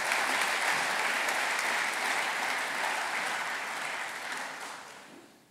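Audience applauding in a hall, steady, then dying away over the last second or so.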